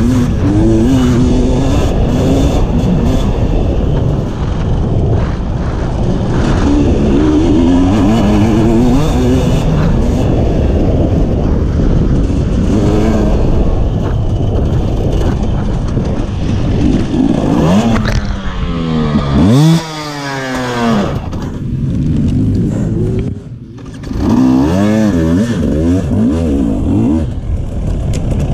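Two-stroke enduro motorcycle engine heard close up from on board, working hard through the gears over the track, its pitch wavering with the throttle. About two-thirds in, the revs climb sharply and then drop off as the throttle shuts, pick up again, and drop once more near the end.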